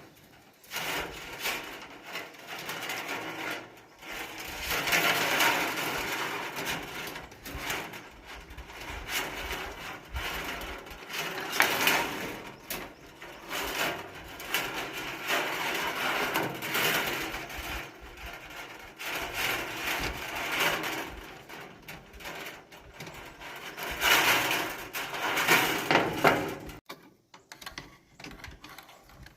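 Bamboo being worked with a hand tool: rough, rasping wood noise in repeated bouts a few seconds long, stopping shortly before the end.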